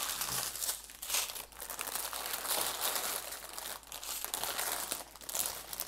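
Thin plastic bags crinkling irregularly as small sealed bags of diamond-painting drills are handled and pushed into a larger clear plastic bag.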